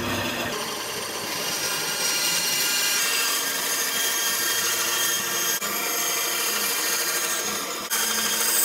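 Delta band saw running and cutting through a pine board: a steady whine from the machine with the rasp of the blade in the wood.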